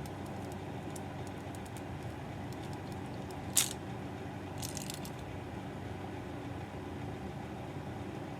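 Plastic parts clicking as a LEGO model and its display stand are handled: one sharp click about three and a half seconds in, then a few faint clicks a second later, over a steady low room hum.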